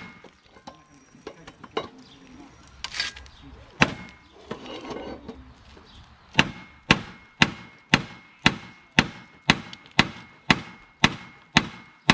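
Hammer blows on the mower's rusted steel blade adapter, which a pry bar is levering outward from the crankshaft: a couple of separate strikes early on, then a steady run of taps about two a second, each with a faint metallic ring. The adapter is rusted on and does not budge.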